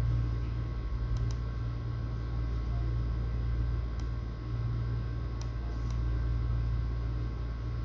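Steady low background hum with a handful of brief, faint clicks: a close pair about a second in, one near the middle and two more a little later.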